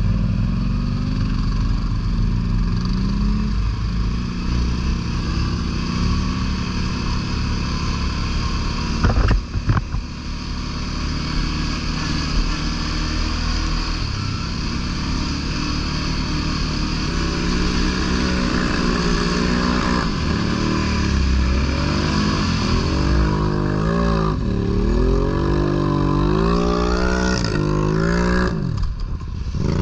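ATV engine running while riding, steady at first, then revving up and down repeatedly through the second half. A brief sharp knock about a third of the way in.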